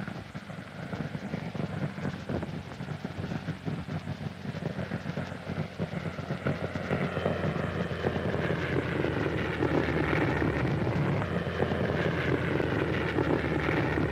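Spitfire's piston engine on an old film soundtrack, heard through a room loudspeaker as the fighter flies aerobatics. The engine drone grows steadily louder, and from about halfway its pitch rises and falls as the plane dives and swoops past.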